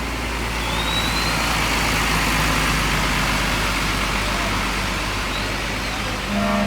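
Bus engine and tyre noise swelling as it passes, then easing off, with a short single-note horn blast near the end.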